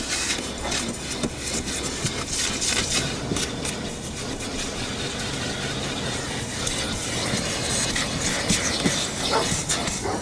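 Aspiron 1200W canister vacuum cleaner running steadily while its nozzle is dragged over a car seat cover, with scraping and rubbing strokes as it pulls up dog hair.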